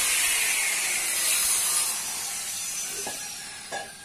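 Paint spraying onto a scooter frame: a steady hiss that fades away over the last two seconds, with two light knocks near the end.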